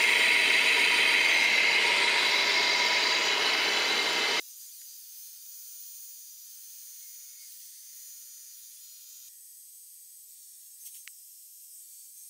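Metal lathe running while a carbide insert turns down a bar of bearing bronze: a loud, steady cutting noise with a high whine in it. About four seconds in it cuts off sharply, leaving only a faint high hiss.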